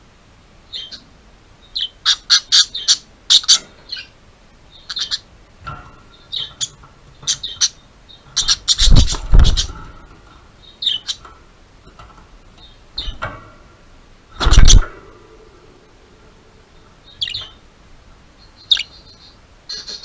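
Pet budgerigars chirping and chattering in short bursts, the happy, contented sound of budgies in company. Two loud thumps close by stand out, one about halfway through and another a few seconds later.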